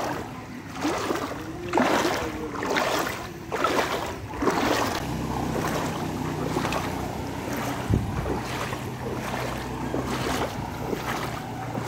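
Floodwater sloshing and splashing in irregular surges. From about five seconds in, a motorcycle engine's steady low hum joins in as the bike rides through the flooded road.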